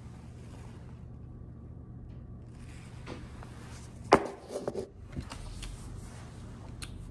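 Paper coffee cup handled and drunk from close to the microphone: one sharp knock about four seconds in, then a few short muffled sounds, over a steady low room hum.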